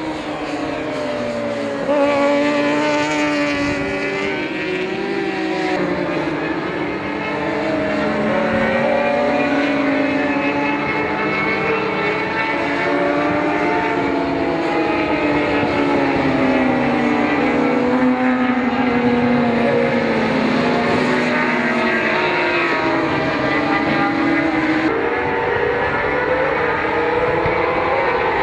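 Several racing sportbike engines at high revs, their pitch climbing and dropping as the riders change gear and pass by. The sound jumps louder about two seconds in.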